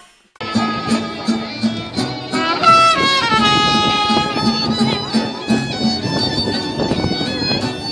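A live band playing, starting abruptly about half a second in, with a steady beat under sustained melody notes.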